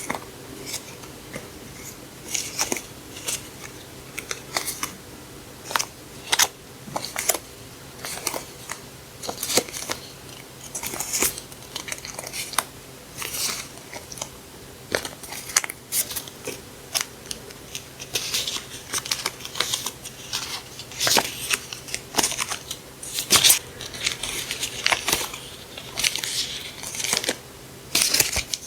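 Paper stationery and its wrapping being handled and unpacked: crisp rustling and crinkling with frequent small taps and clicks.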